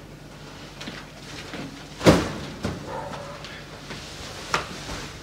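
Thumps and knocks as a mattress is moved through a doorway and set down: one sharp loud thump about two seconds in, a smaller knock just after it, and another knock near the end.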